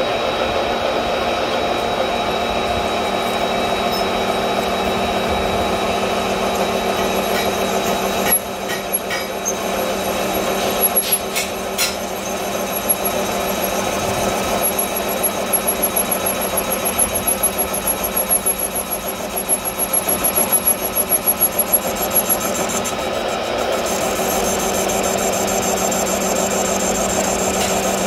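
Metal-turning lathe running while a single-point cutting tool faces the end of a large iron workpiece: a steady mechanical drone with several whining tones. For several seconds past the middle the loudness wavers up and down.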